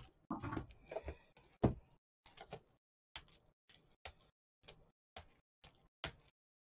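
Shrink-wrapped pack of BCW plastic toploaders being handled and crinkled in the hands: a denser rustle over the first two seconds, then a string of short crackles about two a second.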